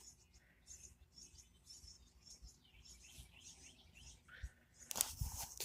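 Small birds chirping: short high-pitched cheeps, two or three a second. A loud rustle and thump about five seconds in.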